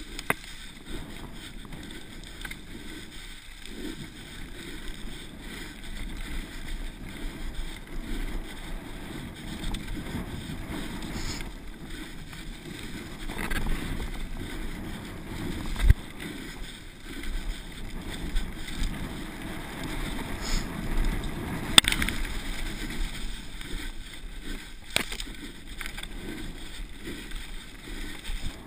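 Rumbling rush of a downhill mountain bike rolling fast over a bumpy dry grass and dirt track, with wind noise on the helmet camera's microphone. A few sharp knocks from the bike or camera mount jolting over bumps stand out, the loudest a little past the middle.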